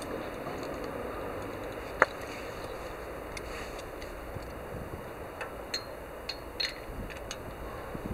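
Light metallic clicks and taps from a spark plug wrench being worked on the motorcycle's spark plug, with one sharper click about two seconds in, over steady background noise.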